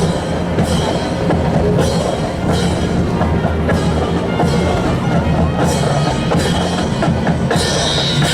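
Music with a steady percussive beat, sharp strikes falling at regular intervals.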